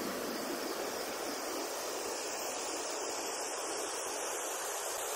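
Steady, even rushing of flowing water with no low rumble under it.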